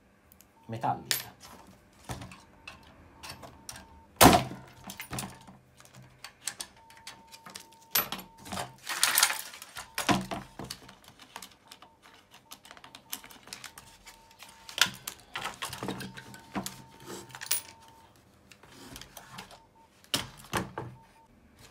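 Small metal clips and screws and the plastic case of a Lesaphon Tahiti record player handled on a workbench during dismantling: irregular clicks, clinks and knocks, with one sharper knock about four seconds in.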